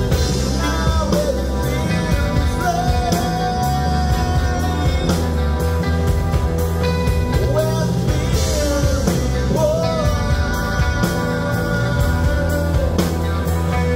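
Live rock band playing: a man sings a wavering melody over electric guitars and drums.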